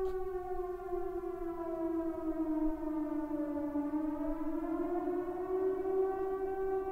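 A steady droning tone with a stack of overtones sags slowly in pitch through the first half and glides back up to its starting pitch near the end.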